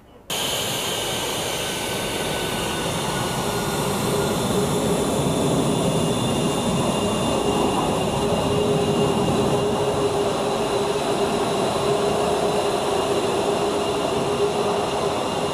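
F-22 Raptor's twin Pratt & Whitney F119 turbofan engines running at taxi power: a steady rushing jet noise with high whining tones over it. It cuts in suddenly just after the start and grows a little louder over the first few seconds.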